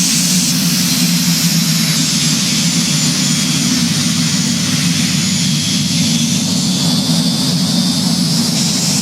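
Aircraft engines running steadily: a loud, even low drone with a high hiss over it and no breaks.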